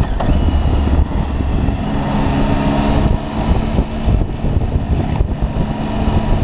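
Triumph three-cylinder motorcycle engine running steadily while riding along at road speed, over a low wind rumble.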